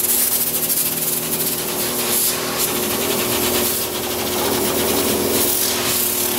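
Electric backpack sprayer's pump running with a steady hum while its wand jets cleaning water into a panel radiator's fins, making a continuous hiss of spray.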